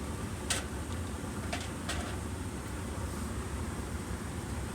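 Slime being kneaded by hand, giving a few short sticky clicks and pops, over a steady low rumble.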